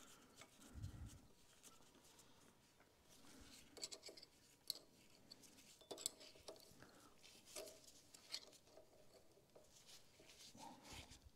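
Faint, scattered metallic clicks and scrapes of a hex key and gloved hands tightening the coupler set screw on a log splitter's hydraulic pump; otherwise near silence.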